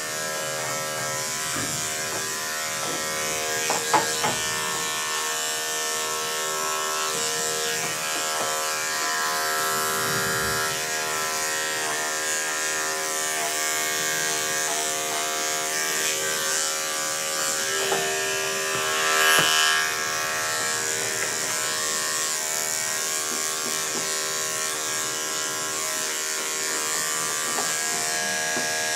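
Electric dog grooming clippers running with a steady even hum as they clip a Scottish terrier's coat. There are a few sharp clicks about four seconds in and a brief louder burst of noise a little past two-thirds through.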